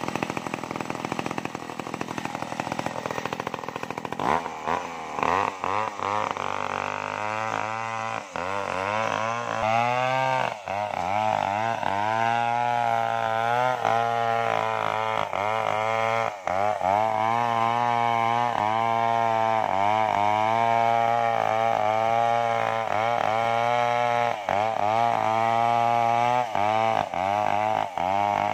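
Large home-built Stihl 070-type two-stroke chainsaw running at low speed, then opened up about four seconds in and cutting through a sengon log. Its engine note sags under load and climbs back again and again as the bar works through the wood.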